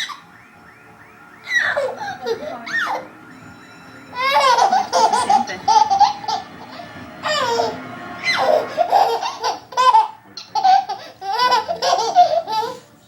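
An 8-month-old baby laughing hard in three long bouts, each a run of quick high laughs, with short pauses between them.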